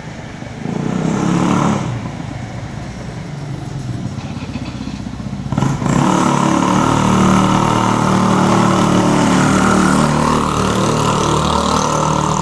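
Road vehicle engine running close by, with a brief swell about a second in and growing louder from about six seconds in.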